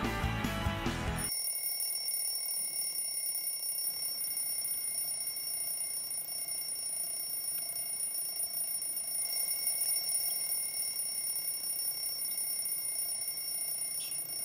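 Alarm clock ringing steadily without a break. The tail of a music track cuts off about a second in, just before the ringing starts.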